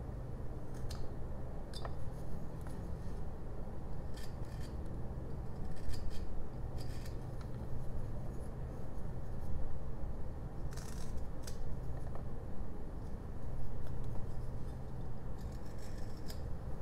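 Carving knife slicing small chips from a hand-held jelutong figure: short, irregular paring strokes of the blade scraping through the wood.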